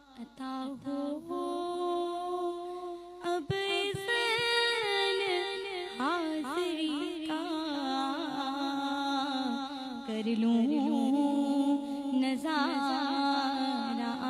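Solo female voice singing a naat, unaccompanied, in long held notes with rapid wavering ornamental runs.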